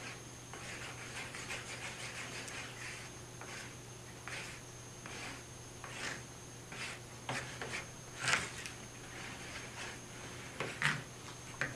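Plastic spoon stirring a glue and water mixture in a paper bowl, a repeated soft swish and scrape about once or twice a second, with a few sharper taps in the second half.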